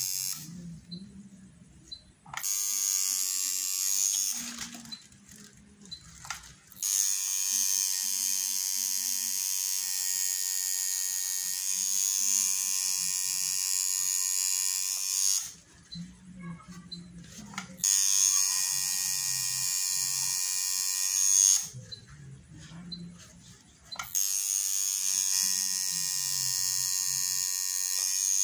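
Electric tattoo machine buzzing as it inks skin, run in four passes with short pauses between: a brief run near the start, a long run of about eight seconds, then two shorter runs of three to four seconds.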